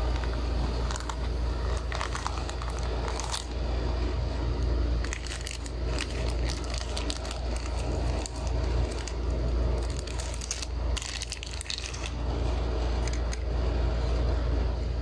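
Handling of a snap-closure sunglasses case and a clear plastic bag: scattered clicks and crinkling rustles over a steady low rumble.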